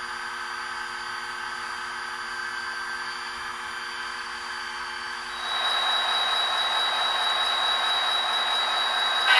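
Diesel locomotive engine sound from a Soundtraxx sound decoder in an HO-scale SD40T-2 model, playing through its small ported speaker box: a steady idle with several humming tones. About five and a half seconds in it gets louder and a high steady whine joins.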